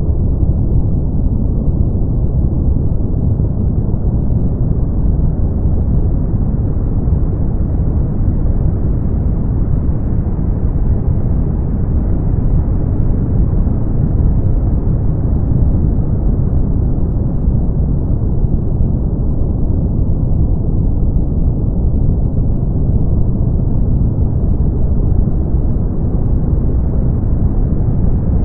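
Brown noise: a steady, deep rush of noise, heavy in the bass and dull at the top, its brightness slowly rising and falling over several seconds.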